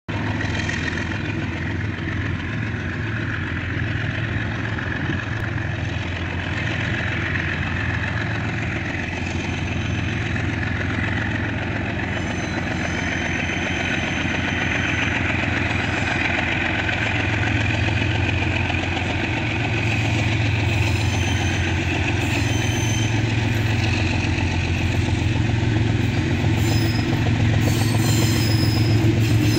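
GE U20C diesel-electric locomotives approaching with a steady low engine drone that grows gradually louder as the train nears.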